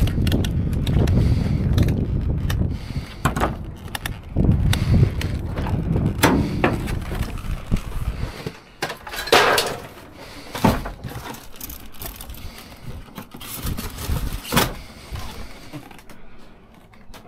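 Scattered knocks and clunks of salvaged scrap and a small laminating machine being handled and carried, over a low rumble that drops away about eight seconds in.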